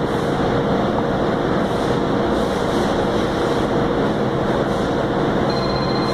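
Steady, loud running-machinery noise of a cabinet shop, an even rumble and hiss with a faint constant hum through it.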